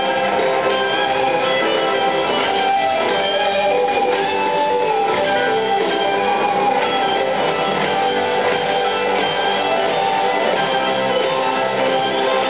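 Live rock band playing, with electric guitars over drums. Recorded from the audience, it sounds dull, with no top end.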